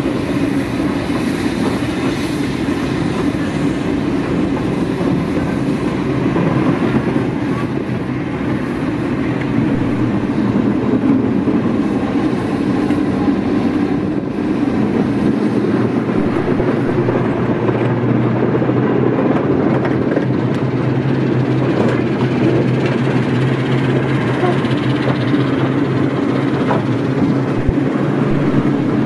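Class 08 diesel shunter's English Electric six-cylinder diesel engine running steadily as the locomotive moves slowly along the track.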